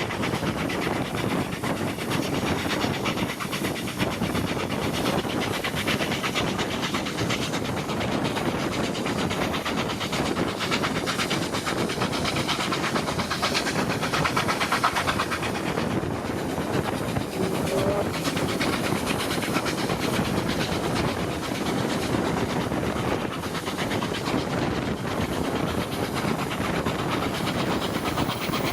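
Steam-hauled train running steadily along the line, a constant rolling noise of wheels on rails.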